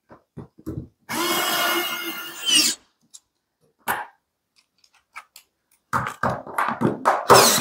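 SATA cordless screwdriver running for about a second and a half as it drives a screw into a solid-state relay's mounting, its whine rising just before it stops. A few clicks follow, then near the end a cluster of knocks and another short run of the screwdriver.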